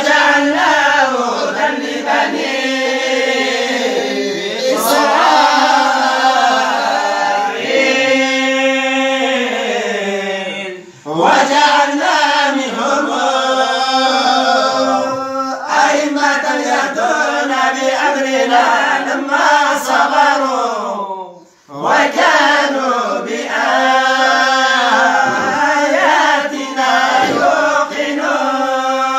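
Several voices reciting the Quran together in unison with melodic tajwid, in long drawn-out phrases. There are two short breath pauses, about 11 and 21 seconds in.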